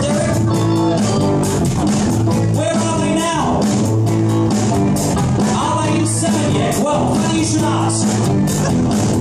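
Live rock band playing: electric guitars and bass guitar over a steady beat, with a melodic lead line bending in pitch.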